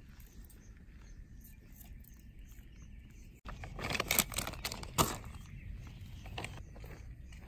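A burst of crinkling plastic and snapping twigs as a plastic bag of meat skewers is set down on a pile of dry sticks, with the sharpest crack about five seconds in. Before it, about three and a half seconds in, there is only a faint outdoor background.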